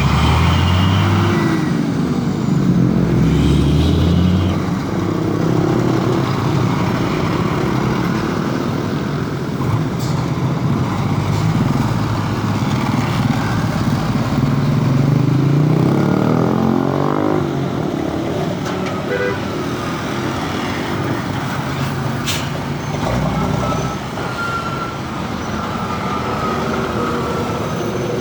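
Road traffic with heavy trucks passing: diesel engines running and changing pitch as they speed up and slow down, one rising clearly about two-thirds of the way in.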